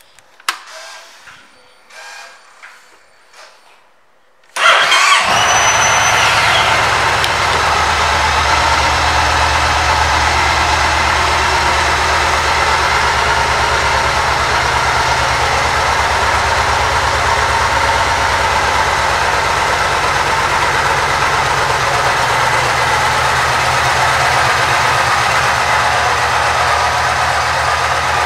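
2009 Yamaha Stratoliner's 1854 cc air-cooled V-twin engine starting about four and a half seconds in, then idling steadily. Before it starts, only a few faint clicks.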